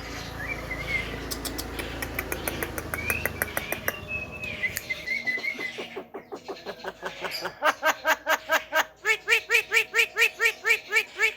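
Javan myna (jalak kebo) calling: a run of fast clicking notes under warbling whistles, then from about seven seconds a rapid series of loud, repeated pitched notes at about four to five a second.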